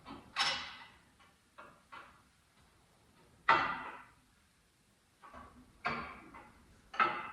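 Several sharp metal clanks and knocks from parts and tools being handled, the loudest about three and a half seconds in, with a few fainter taps between them.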